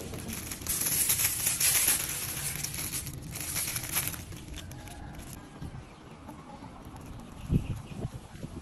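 Thin plastic fruit bag crinkling and rustling for about three seconds as it is pulled off a guava on the branch, then a short dull crack near the end as the guava is pressed open with the thumbs.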